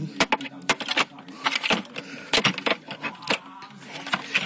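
Irregular plastic clicks and rattles as batteries are handled and pressed into the battery compartment of a Seiko melody wall clock.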